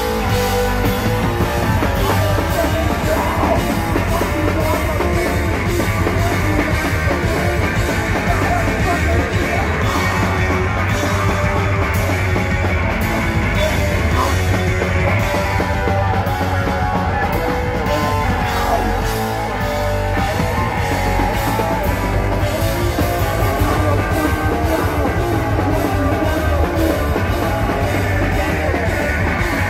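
Hardcore punk band playing live at a fast pace: drum kit, distorted electric guitar and bass guitar, with a shouted lead vocal.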